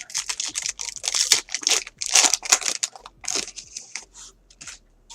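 A foil trading-card pack being torn open and its wrapper crinkled, in dense irregular rustles that thin out after about three and a half seconds.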